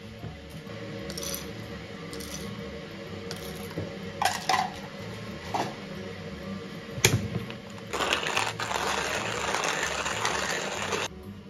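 Wooden hand-crank coffee mill: a few clicks and rattles as the mill is handled, then about three seconds of steady grinding, the crank turning and the burrs crunching coffee beans, starting about eight seconds in and stopping abruptly.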